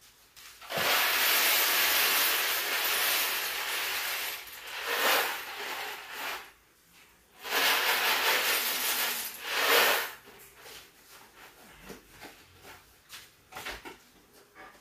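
Dry macaroni poured from its cardboard box into a pot on the stove, a rattling hiss in two pours: a long one starting about a second in, then a shorter one a moment later.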